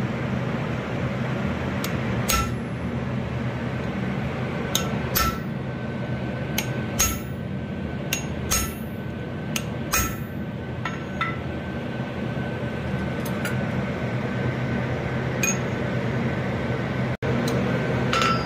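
Hammer blows on a fuller, driving it into a steel bar on the anvil to neck it down. The strikes come irregularly, a second or more apart, each with a short metallic ring, over a steady low hum.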